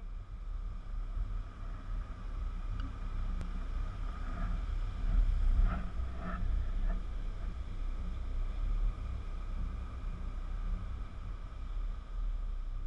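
Wind rumbling and buffeting on the microphone, over the steady wash of surf breaking on the beach.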